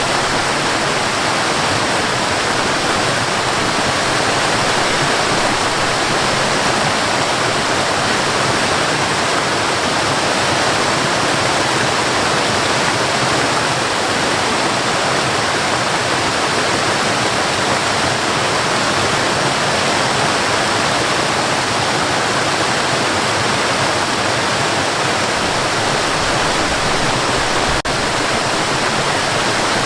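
Cascading water rushing steadily, a constant full splashing roar with no change.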